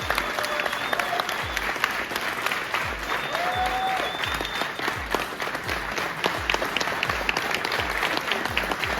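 Seminar audience applauding, a dense steady clapping, over a low regular beat from background music.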